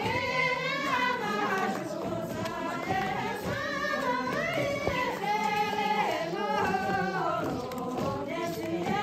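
A group of voices, women's among them, singing a folk song together in long held notes that slide from pitch to pitch.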